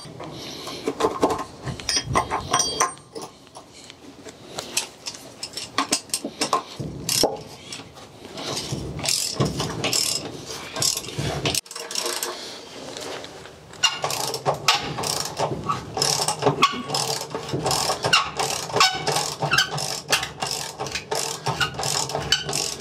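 Socket ratchet wrench clicking rapidly as it drives hex-head concrete screws through a timber sleeper into a concrete slab.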